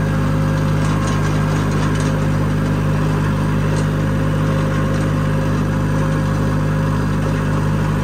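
Tractor engine running at a steady speed, a loud, even drone that holds one pitch throughout, with a few faint light clicks over it.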